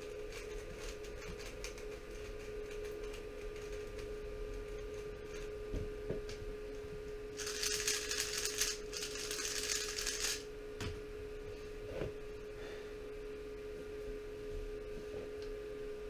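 3x3 speedcube being turned very fast, a dense rattle of plastic layer clicks that is loudest for about three seconds in the middle, with lighter scattered clicks before and a few single knocks after. A steady electrical hum runs underneath.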